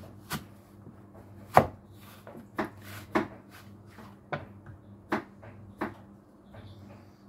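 Metal apple corer being pushed and twisted through a whole apple on a wooden cutting board: a series of sharp crunching knocks, about seven, the loudest about a second and a half in.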